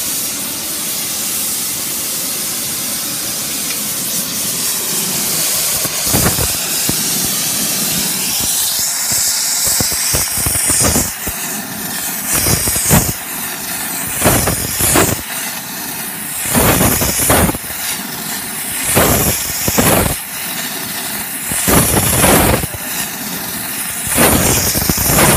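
Gas torch flame blasting into a ceramic crucible of silver and borax flux, a loud steady hiss. From about six seconds in it comes in a series of louder rushing surges every two to three seconds.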